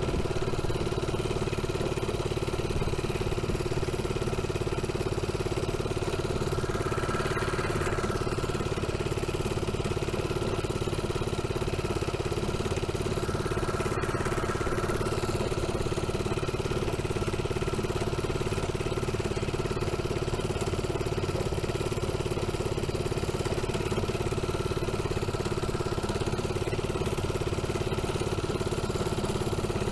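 Manco mini bike's Thunderbird 79cc engine running steadily under load as the bike is ridden, its note barely changing. It holds just above idle even with the throttle wide open, which the owner puts down to the carburetor.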